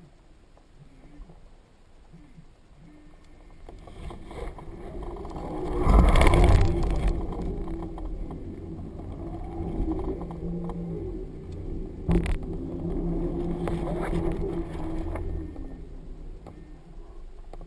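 Wind rushing and buffeting over a GoPro camera mounted on a flying tube kite's center strut: it builds to a loud gust about six seconds in, stays strong, then eases near the end. One sharp click about twelve seconds in.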